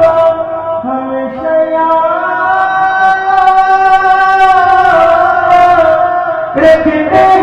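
A man's voice singing a naat into a microphone in long, drawn-out held notes that slide between pitches, with a brief break about six and a half seconds in before the line resumes.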